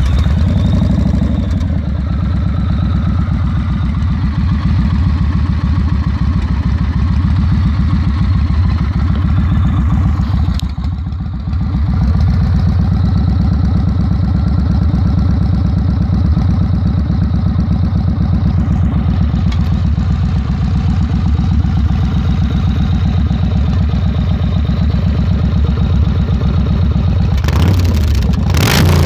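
2009 Yamaha Road Star Warrior's V-twin engine idling steadily just after start-up, with a rapid, even firing beat. The sound drops briefly about ten seconds in, and the throttle is blipped near the end.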